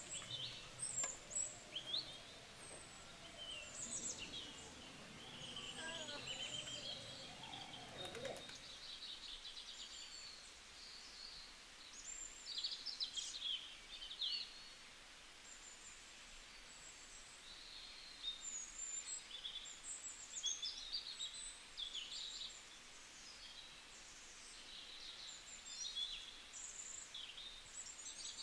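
Small birds chirping and twittering on and off, short high calls scattered throughout, over faint background hiss.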